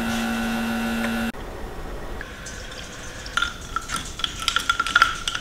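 A steady hum that cuts off just over a second in, then a metal spoon stirring a drink in a glass, clinking quickly and repeatedly against the glass with a light ring.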